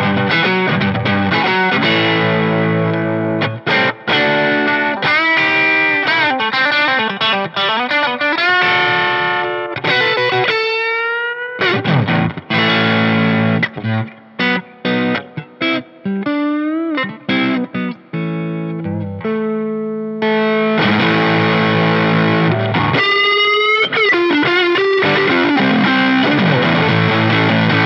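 A 1978 Tokai Springy Sound ST-42 electric guitar played through an overdriven Fender Deluxe Reverb tube amp: ringing chords and lead lines, with notes sliding up in pitch. Through the middle the playing turns choppy, short stabs with gaps between them, before full chords return.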